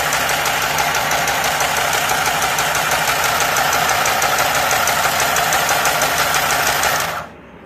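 Mini sewing machine running steadily with a rapid, even stitching rhythm, then cut off near the end. It is running properly after its gear wheels were oiled and greased with Vaseline to cure its noise.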